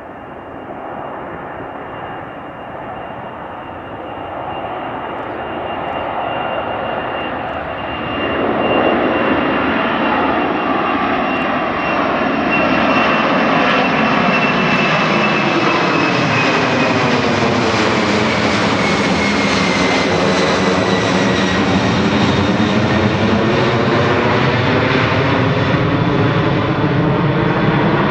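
Boeing 747-48EF freighter's four jet engines at climb power after takeoff, passing overhead. The jet noise grows louder over the first nine seconds, then holds, with a high engine whine that slowly falls in pitch as the aircraft goes by.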